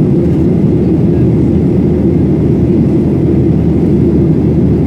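Airplane cabin noise in flight: a loud, steady low rush that does not change.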